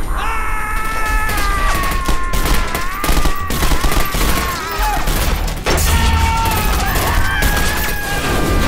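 Film gunfight sound: many gunshots fired in rapid, irregular succession over a sustained high, wavering tone.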